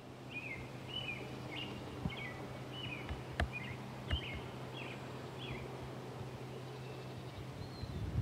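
A bird calling over and over, short chirps about every half second that stop about two-thirds of the way through. Under it are a steady low hum and outdoor background noise, with two sharp clicks near the middle.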